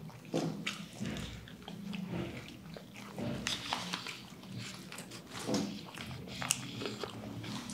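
Close-miked chewing of a crispy fried-chicken burger, with wet lip smacks and clicks and a few low closed-mouth hums.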